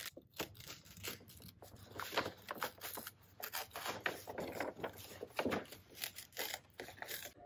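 Brown paper grocery bag rustling and crinkling as it is handled and torn open, a run of short irregular crackles.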